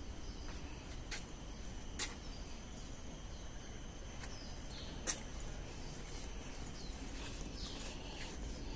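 Garden ambience: a steady faint drone of insects with a few short bird chirps, over a low steady rumble. Three sharp clicks stand out, about one, two and five seconds in.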